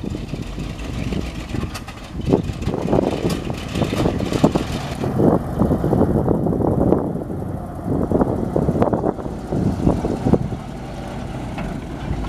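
1979 International S-series truck's engine running, with wind buffeting the microphone in uneven gusts.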